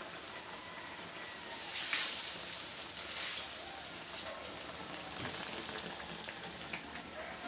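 Banana slices frying in hot cooking oil in a wok: a steady sizzle that swells briefly about two seconds in, with a few sharp pops near the end.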